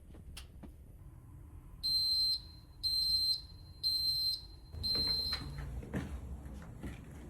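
Smoke alarm's sounder going off with four loud, high-pitched beeps about one a second, set off by aerosol test smoke, then falling silent; a few knocks and rustles of handling follow. The detector sounds locally, but it is not communicating the alarm back to the panel.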